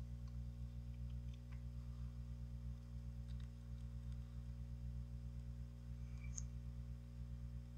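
Quiet room tone of the recording: a steady low electrical hum with a few faint clicks.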